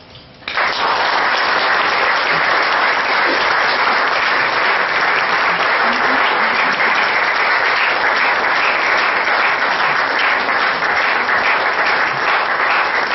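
Audience applauding, the clapping starting suddenly about half a second in and holding steady and dense.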